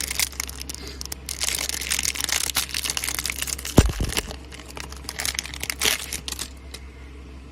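Trading-card pack wrapper being torn open and crinkled, a dense crackling rustle that comes and goes, with one dull thump of handling just before the middle.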